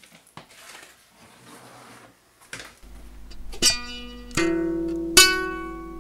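Faint clatter of a blender jug being handled, then guitar music over a low steady hum: three plucked chords less than a second apart, each left to ring.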